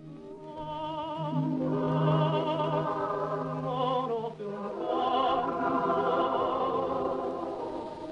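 Orchestral film score with a choir singing long, wavering held notes.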